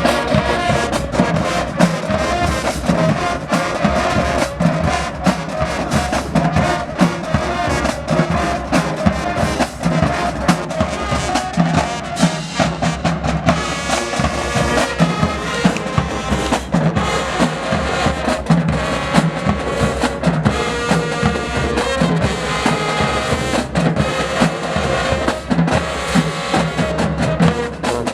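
High school marching band playing, brass over a drumline with steady drum hits throughout; the brass chords come through more strongly from about halfway.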